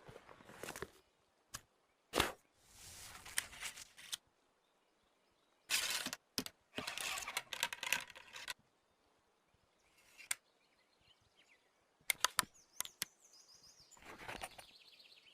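Handling of a double-barrel flintlock shotgun: a series of sharp clicks and short stretches of rustling, with bird chirps near the end.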